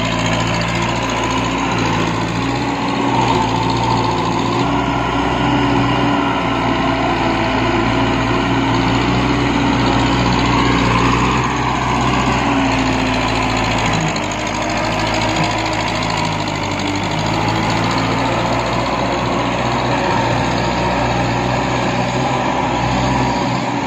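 TAFE 5900 tractor's diesel engine running steadily under load, driving a rear rotary tiller through soft, waterlogged paddy mud. The engine note dips briefly about fourteen seconds in, then recovers.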